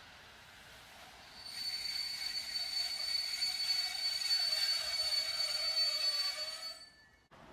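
PKP Intercity passenger coaches squealing high and steadily from their wheels and brakes as the train slows to a halt at a platform, with a lower tone sinking slightly underneath. The squeal starts about a second and a half in and fades out near the end.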